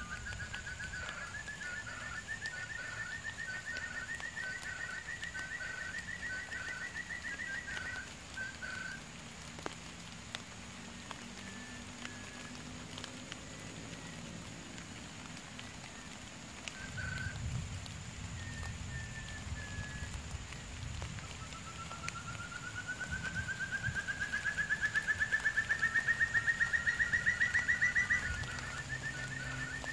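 Forest quail calling: a long trill of rapid pulses that climbs steadily in pitch for several seconds, with short clipped notes alongside it. The trill comes twice, the second louder, near the end.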